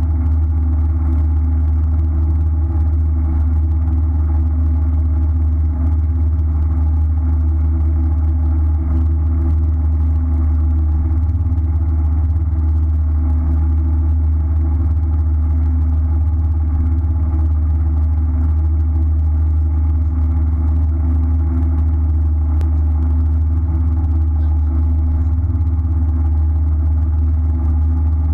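Fishing boat's engine running steadily at idle: a constant deep hum with a steady stack of tones above it.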